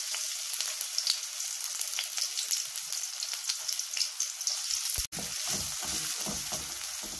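Chopped onion sizzling and crackling in hot mustard oil in a wok. About five seconds in, a wooden spatula starts stirring it, with repeated scraping strokes against the pan under the sizzle.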